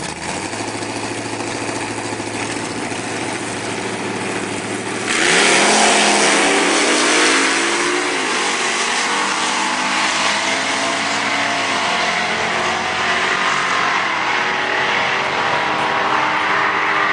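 1994 Chevrolet Camaro engine idling, then revved about five seconds in. It suddenly grows louder, its pitch climbs and falls back, and it settles into a steady, faster run.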